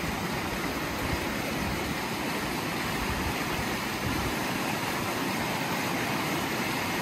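Steady rushing of a shallow creek, with water swirled through a plastic gold pan held in the current.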